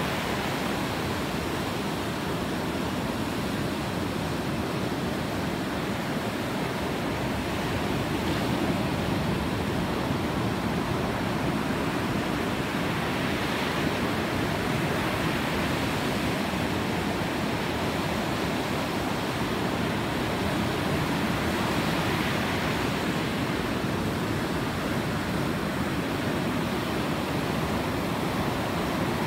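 Ocean surf: a steady rush of waves breaking and washing in, swelling a few times as a wave breaks.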